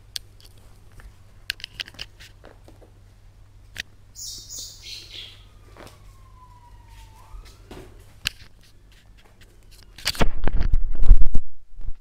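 Scattered small clicks and scuffs from a seven-week-old Border Terrier puppy chewing a slipper on a tiled floor, with a faint high squeak about halfway through that falls and then rises. Near the end comes a loud rumbling and rubbing of handling noise on the microphone as the camera is moved against the body.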